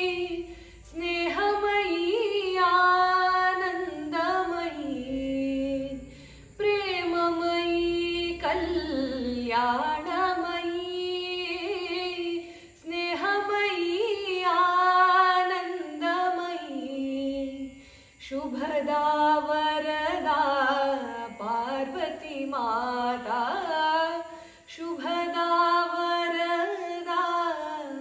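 A woman singing a devotional Devi bhajan solo, in long held, gliding phrases with a short breath about every six seconds.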